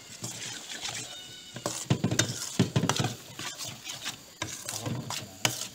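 A metal spoon stirring and scraping rice in a steel pan on a gas stove, with repeated clinks and scrapes against the pan that are loudest about two to three seconds in.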